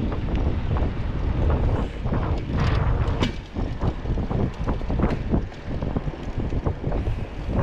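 Wind buffeting the microphone of a rider on a moving bicycle, a heavy uneven rumble that gusts and dips.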